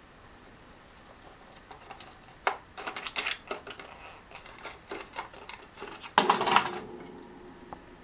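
Budgie pecking and knocking at glass and metal ornaments on a shelf: an irregular run of small clicks and clinks, with a louder rattling burst about six seconds in.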